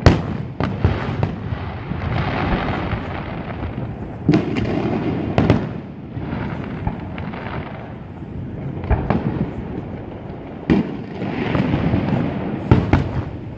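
Fireworks display: aerial shells bursting in a string of sharp booms at irregular spacing, the loudest right at the start, each trailing off in reverberation, with crackling between the bursts.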